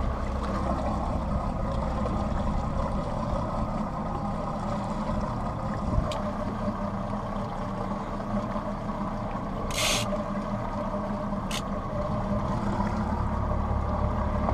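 Yamaha outboard motor running steadily at low speed, an engine the skipper says is running hot in the warm water and not idling well. A brief hiss cuts in about ten seconds in and again a moment later.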